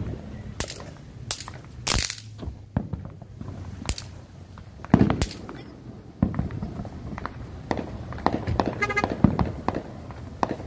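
Fireworks and firecrackers going off: a string of sharp bangs about a second apart, then from about six seconds in a quicker run of smaller crackling pops.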